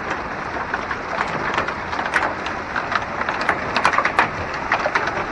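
Hailstorm: heavy rain hissing steadily, with many sharp, irregular clicks of hailstones striking.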